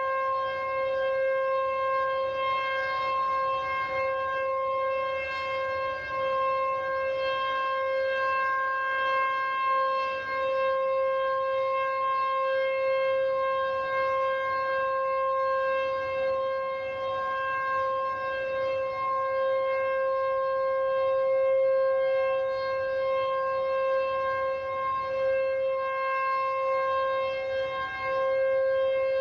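SuperSirex outdoor warning siren sounding one steady tone for its 3-minute tornado-drill test. The pitch holds level throughout, and the loudness wavers slightly.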